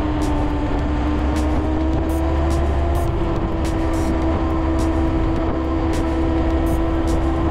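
Honda Monkey 125's single-cylinder four-stroke engine running at a steady cruising speed under the rider, its note dipping slightly about half a second in, then holding steady.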